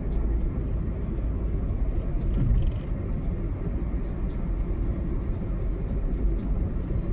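A car being driven on the highway: a steady low rumble of road and engine noise.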